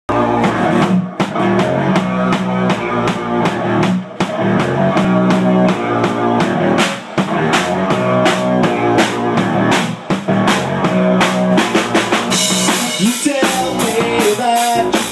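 A live rock band playing: a drum kit keeping a steady beat under electric guitar and keyboard. The sound gets brighter and fuller about twelve seconds in.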